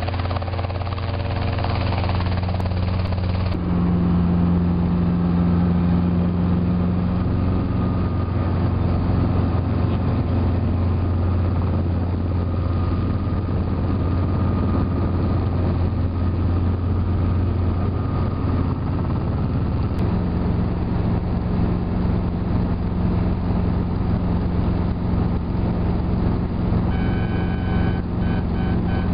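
Light helicopter's engine and rotor running steadily with a strong low hum. For the first few seconds it is heard from the ground as it flies past; after an abrupt change it is heard from inside the cabin in flight, a constant drone.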